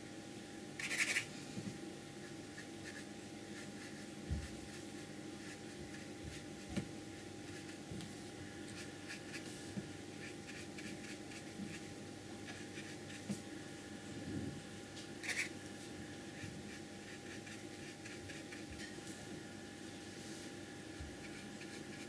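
Flat brush stroking paint onto paper: soft scratchy strokes, with two brief louder scrapes, about a second in and about two-thirds through, and a few light knocks, over a steady background hum.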